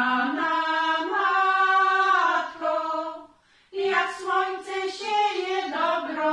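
Women's folk choir singing a cappella, holding long sung notes. The singing stops for a short breath about three and a half seconds in, then the next phrase begins.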